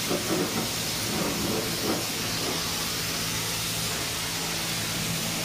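Trigger spray bottle squirting wheel-rim cleaner onto an alloy wheel, a few short squirts in the first two seconds, over a steady hiss with a low hum underneath.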